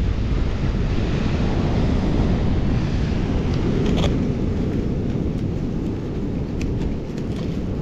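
Wind buffeting the microphone over breaking surf, a steady low rumble, with a few faint clicks about halfway through and again near the end.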